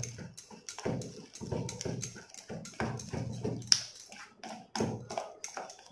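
A hand beating thick wheat-flour and jaggery batter in a stainless steel bowl: an irregular run of short, wet slapping strokes, several a second.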